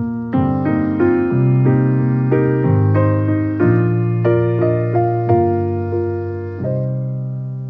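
Background piano music: a gentle melody of single notes, several a second, over held low chords.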